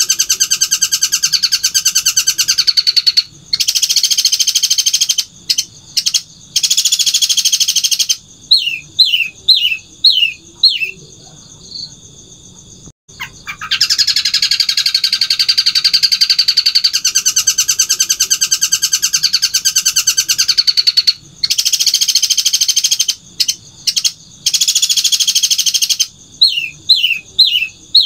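Long-tailed shrike (cendet) singing loudly in long rapid-fire bursts of harsh, high trilling, each running for a few seconds. The bursts are broken by short pauses and by runs of quick, falling whistled notes, once about a third of the way in and again near the end.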